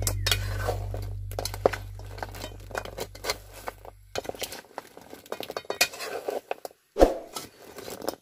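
A metal spatula clinking and scraping against a metal pan in irregular clicks while fried cassava balls are tossed in caramel syrup. Background music fades out about four seconds in.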